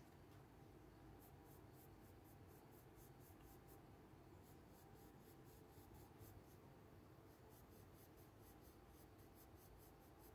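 Faint scratching of a colored pencil on paper, a steady run of quick short strokes, about three or four a second.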